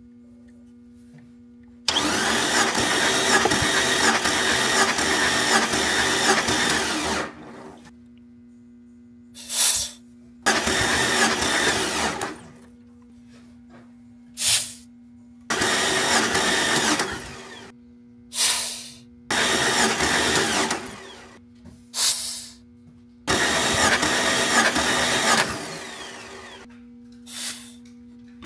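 The 4.0 straight-six of a 1997 Jeep Cherokee is cranked over by its starter in five bursts of about two to five seconds, each winding down as it stops. Between cranks come short sharp hisses, typical of a compression gauge being vented during a compression test.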